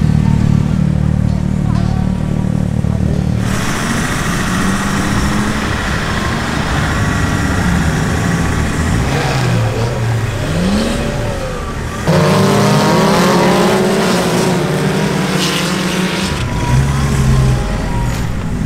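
Engines of off-road competition vehicles running and revving. The sound changes abruptly about three and a half seconds in and again about twelve seconds in, with rising and falling pitch in between.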